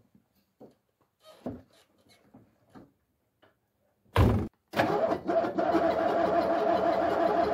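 Cold start of a Star 200 truck's six-cylinder diesel, its engine warmed by a fire lit beneath it: small knocks and shuffling as the driver gets into the cab, a short loud thud about four seconds in, then the engine catches, stumbles for a moment and settles into steady running.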